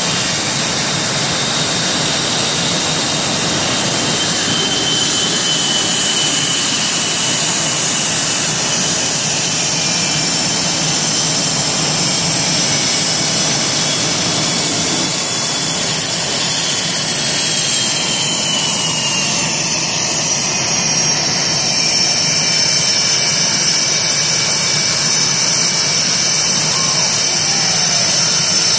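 Boeing F/A-18 Hornet jet engines running as the jets taxi: a steady, loud jet roar with high turbine whines, which slide down in pitch partway through.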